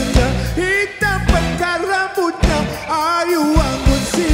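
Live band playing a Malay pop song: a wavering, gliding lead melody over a steady bass and drum beat.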